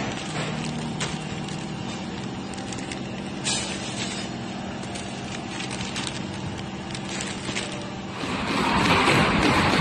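Horizontal flow wrapper packaging machine running steadily with a low motor hum, occasional clicks and rustles of plastic film as bread is wrapped. About eight seconds in, a louder, even rushing machinery noise takes over.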